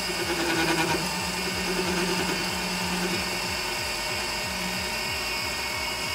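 Emco Maximat V10 metal lathe running at 630 RPM while the tool takes a 22-thousandths cut on a 2-inch bar held in a follow rest. A steady pitched chatter tone sounds over the running machine for the first three and a half seconds, then dies away.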